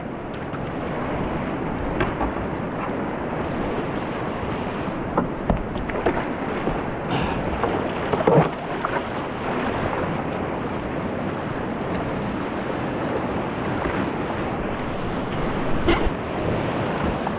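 Steady rush of a river whitewater rapid, with a few short sharp splashes scattered through it.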